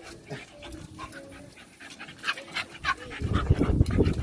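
Two Patterdale-type fell terriers play-fighting: panting at first, then loud low play-growling about three seconds in as they rear up and wrestle.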